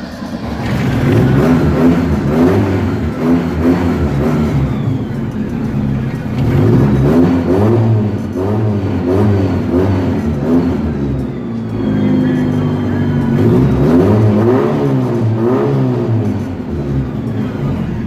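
Fiat 147 engine revved again and again through its modified exhaust, heard at the back of the car. The revs rise and fall about once a second, with a short steadier stretch near the middle.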